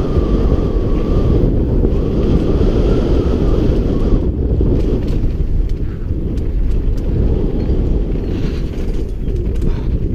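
Wind buffeting a bike-mounted action camera's microphone during a fast mountain-bike descent, a dense steady rumble, with the tyres running over dirt and loose gravel and scattered clicks and rattles from the bike. A faint wavering whine sounds through the first four seconds.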